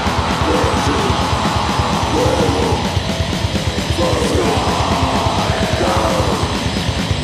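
Live war metal played on distorted electric guitars, bass guitar and drums, with very fast drumming and harsh shouted vocals over it.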